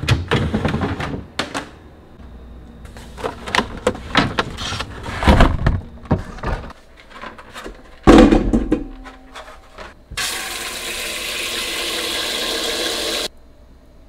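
A refrigerator crisper drawer being pulled open and its contents handled, with knocks and rustling. About eight seconds in, plums are tipped into an enamel bowl in the sink with a thud, then tap water runs into the bowl for about three seconds and cuts off suddenly.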